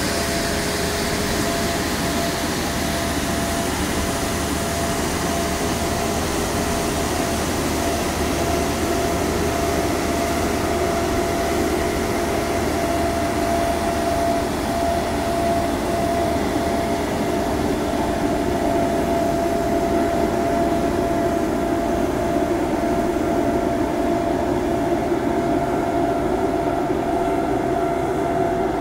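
ICM Tremocity street sweeper on a Multicar Tremo CS running as it sweeps. Its engine and rotating road brushes make a steady machine noise with a constant whine, and the high end fades near the end as it moves away.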